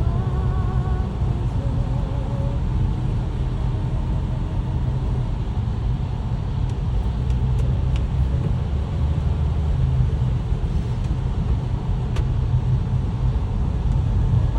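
Steady low rumble of a car being driven, heard from inside the cabin, with tyre hiss from the wet road. A faint wavering tone sounds in the first few seconds, and a few faint clicks come later.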